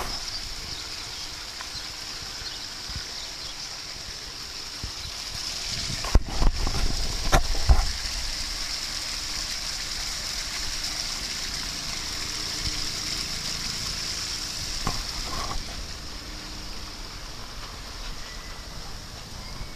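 Steady hiss of running water, with a few short knocks and thumps about six to eight seconds in.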